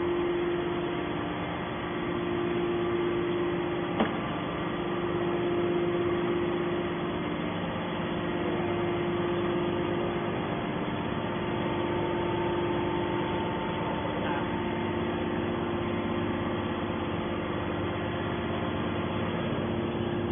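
Hydraulic scrap-metal baler's electric motor and hydraulic pump running at idle, a steady hum with a low drone, and a single sharp click about four seconds in.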